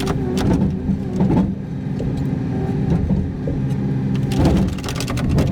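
Truck engine running steadily while driving, heard from inside the cab, with a brief run of rapid clicks about four seconds in.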